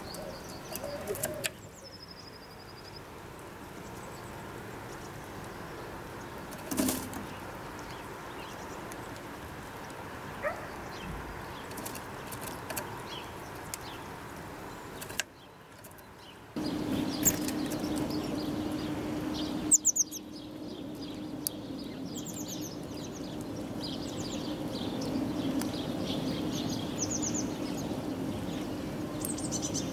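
Small birds chirping in short, high calls, more often in the second half, with a few sharp clicks and wing flutters. A steady low hum joins about halfway through.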